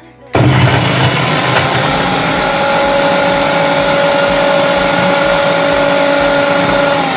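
Electric mixer grinder switched on with a sudden start, running at speed with a steady motor whine as it grinds boiled jackfruit seeds in its jar. It begins to wind down at the very end.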